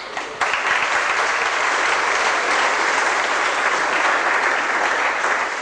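Audience applauding: a few separate claps, then dense applause from about half a second in, easing slightly near the end.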